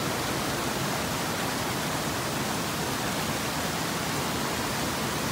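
Steady rush of a small waterfall cascading over rock.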